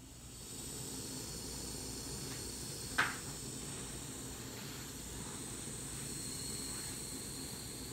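Steam hissing steadily through the brass valves and piping of a miniature steam plant, rising as a valve is opened by hand. There is a single sharp click about three seconds in.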